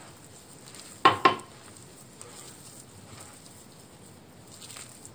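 Hand squeezing and rubbing crumbly dough and flour in a glass bowl, a soft gritty rustle. About a second in come two sharp knocks, a fifth of a second apart, the loudest sounds here.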